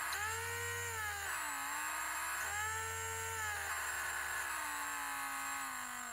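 Mini drill's small electric motor running with a high whine. The pitch dips about a second and a half in as the speed drops, climbs back up, then slowly sinks through the second half.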